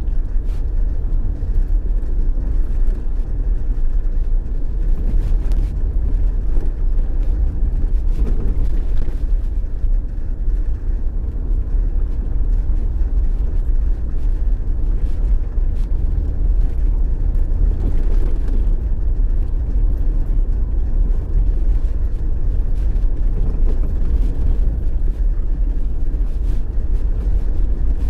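Steady low rumble of a moving road vehicle, its engine and tyre noise running on without a break.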